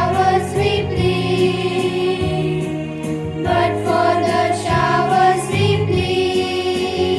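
Choir singing a hymn-like song over an instrumental accompaniment, with held notes that change about every second.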